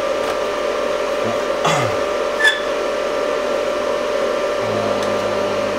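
Steady whir of a small electric blower or fan motor running on the workbench, with a constant hum. A faint click comes about two and a half seconds in.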